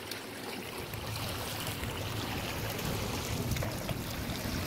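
Water splashing and sloshing against a boat's hull as a hooked shark rolls at the surface alongside.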